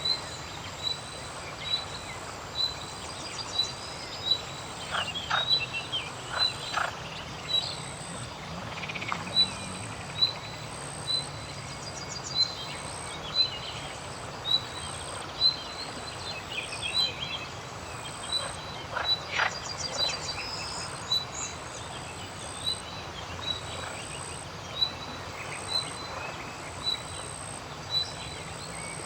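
Riverside soundscape: frogs calling, a short call repeated roughly once a second, with occasional bird calls over a steady outdoor background.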